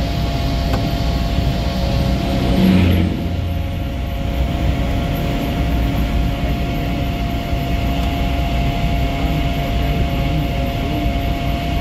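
A vehicle driving along a highway: steady engine and road noise, with a brief louder swell about three seconds in.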